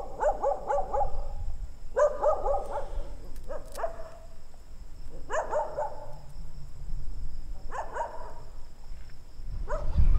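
A dog barking in short bouts of several quick barks, a new bout about every two seconds.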